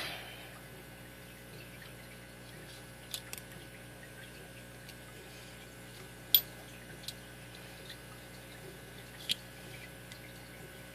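A handful of sharp, isolated clicks and taps from a padlock and small tools being handled while it is taken apart, the loudest about six seconds in, over a faint steady background hum.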